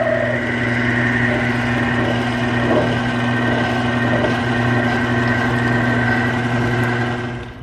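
An electric machine running steadily with a low hum and a high whine, cutting off abruptly near the end.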